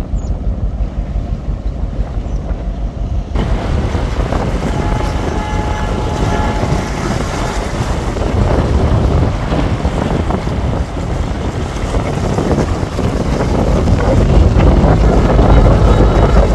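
Wind buffeting the microphone, a heavy, gusty low rumble. About three seconds in a brighter hiss joins it, and the noise grows louder toward the end.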